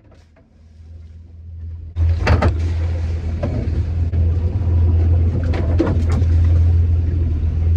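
Boat engine idling low, then throttled up about two seconds in and running loud and steady as the boat gets underway, with a rushing noise and a few knocks over it.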